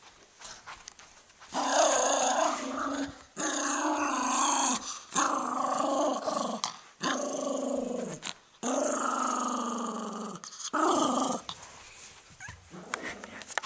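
Small dog play-growling while it mouths a toy, about six long growls of a second or so each with short breaks, dying away about three quarters of the way through.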